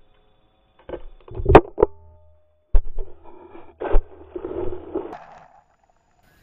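A rolling pumpkin slams into a small camera sitting on the grass and knocks it over: a run of heavy thumps, the loudest about a second and a half in, then the camera tumbling and scraping through the grass for a second or so before it comes to rest.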